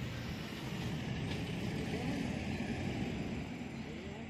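A vehicle engine running steadily at idle, with faint distant voices.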